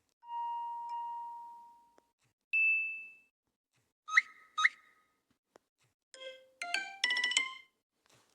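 LG phone notification and system sounds played one after another: a clean chime tone that fades over about two seconds, a higher short ping, two quick blips, then a brief fast run of bright notes about six seconds in.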